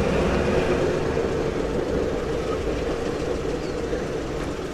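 1936 Ford's flathead V8 running under way, a steady engine drone with road noise that eases off a little toward the end. The engine is freshly rebuilt and being broken in at low speed.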